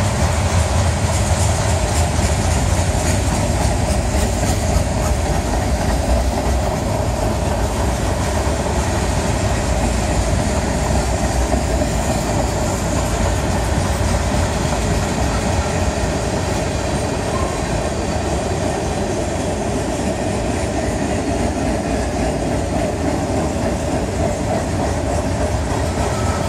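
Freight cars of a long mixed manifest train rolling past steadily: steel wheels running over the rails, with no letup.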